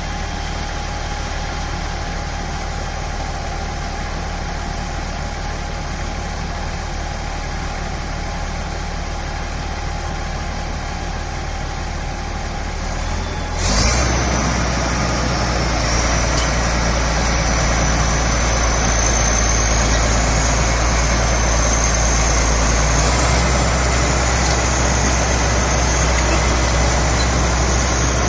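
Bulldozer's diesel engine running steadily at idle, then about halfway through it revs up suddenly and keeps running louder, with a high whine riding over it.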